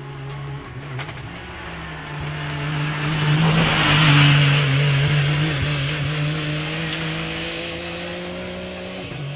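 Rally buggy engine driving past, with a rush of noise that swells to a peak about four seconds in and fades; the engine note climbs steadily as it accelerates away.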